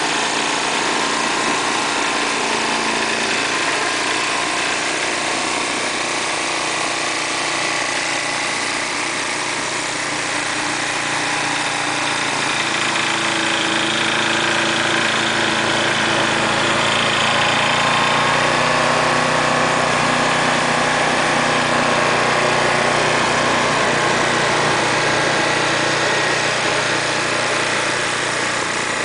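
Walk-behind snowblower's small gasoline engine running steadily, its pitch shifting a little partway through.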